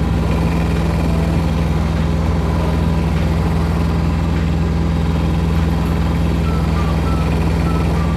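An engine running steadily at a constant speed, a close, even hum with no revving or change.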